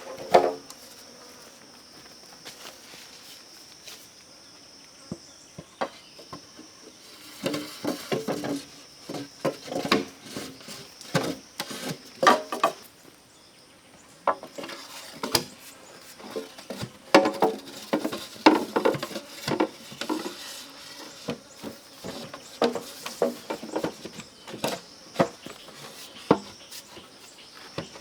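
Steady high-pitched insect chorus, typical of forest crickets or cicadas. Over it, from about a quarter of the way in, come irregular bursts of rustling, light clattering and knocking, with short gaps between them.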